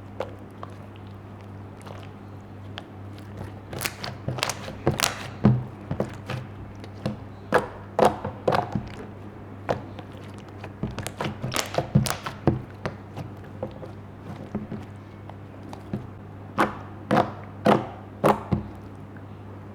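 Slime being pressed and squeezed by hand, giving irregular sharp pops and clicks that come in clusters. A low steady hum runs underneath.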